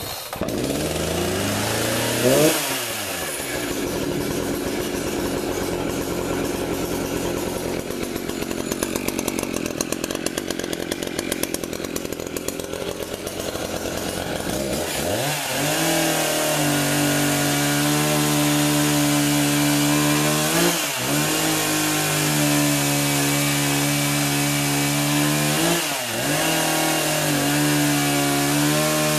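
Echo CS590 two-stroke chainsaw firing up on choke, revving once and dropping back to a lower steady run. About fifteen seconds in it revs up to full throttle and cuts through a log under load, with the engine note dipping briefly twice.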